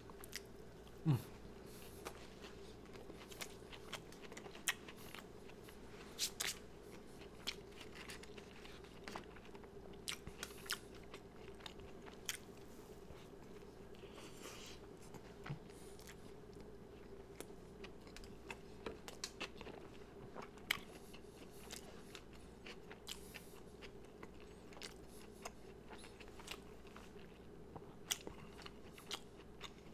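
Mouth sounds of someone chewing corn dog nuggets dipped in hot sauce, heard close up. Soft bites, wet smacks and small crunches come at irregular intervals over a faint steady hum.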